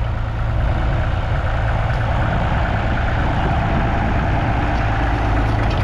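Massey Ferguson 35's 2.5-litre three-cylinder diesel engine running steadily.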